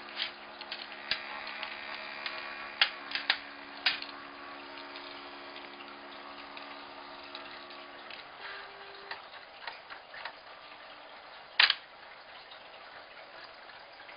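A disc title printer (CD label printer) running with a steady multi-tone motor hum that stops about eight seconds in. Scattered light clicks and ticks come over it, with a sharper click near the end.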